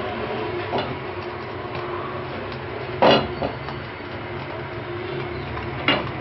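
Steady low background hum, with a sharp metal knock about three seconds in as the nonstick wok is shifted on the stove, and a smaller clank near the end.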